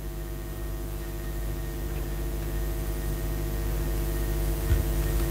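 Room tone: a steady low hum with faint hiss that slowly grows a little louder, and one soft low bump near the end.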